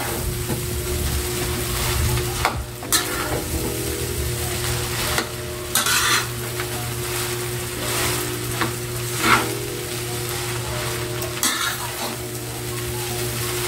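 Rice and egg frying in a metal wok, sizzling steadily, while a metal spatula stirs and turns it, with a few sharper scrapes and clinks of the spatula against the pan.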